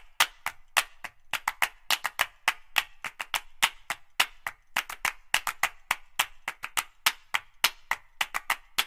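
A quick run of sharp claps, about three or four a second in an uneven rhythm.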